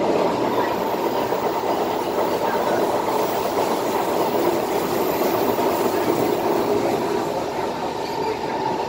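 Running noise inside the passenger car of an SMRT Kawasaki C151 metro train travelling at speed: a steady sound of wheels on rail and the train's motors, easing slightly near the end.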